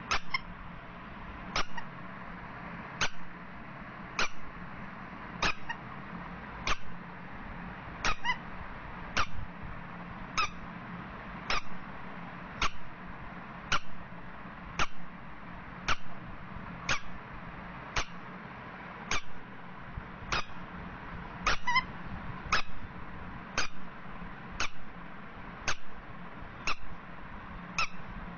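Rubber duck squeeze toy squeaking, squeezed in a steady rhythm about once a second, each squeak short and high.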